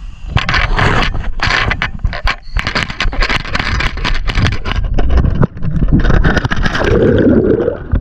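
Scuba gear knocking and rubbing against the camera as a diver slides off a dock into the water. Near the end there is splashing and fizzing bubbles as he enters.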